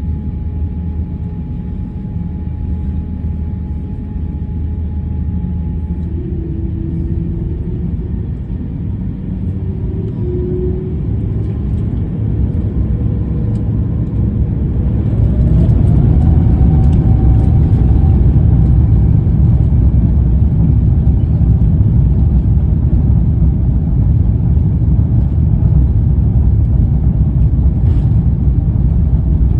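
Jet airliner engines spooling up for takeoff: a steady low rumble, with a rising whine about halfway through as thrust comes up. After that the rumble is louder and holds steady through the takeoff roll.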